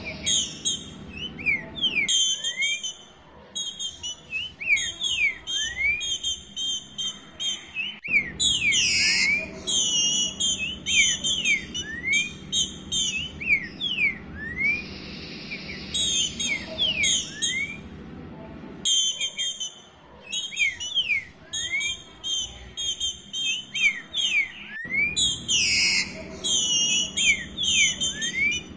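Female green-winged saltator (trinca-ferro) calling to solicit a male for mating: a rapid, unbroken run of short upward-sliding whistled notes mixed with clusters of high chirps.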